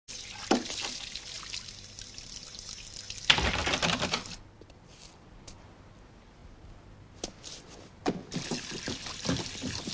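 Water splashing and trickling in a kitchen sink as dishes are washed by hand, with a louder gush a little over three seconds in. It then goes quieter, with a few sharp clicks, and scattered knocks and rustles come in near the end.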